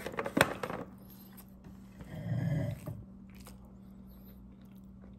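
Eating a fish sandwich: a few sharp, crackly crunches in the first second, then a short low murmur about two seconds in.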